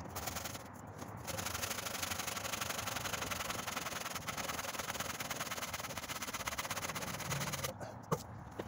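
Hand saw cutting through a tree branch with steady back-and-forth strokes. The sawing pauses briefly about a second in, resumes, and stops near the end, followed by a couple of small clicks.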